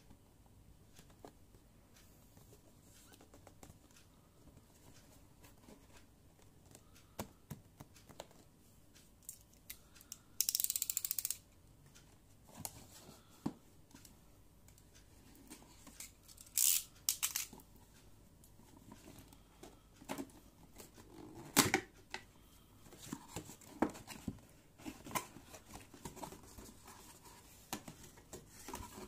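Cardboard toy box being handled and opened: taps and scrapes on the box, a snap-off utility knife slitting the tape on its end, and a few sharp tearing snaps. About ten seconds in comes a one-second run of fast, high clicks.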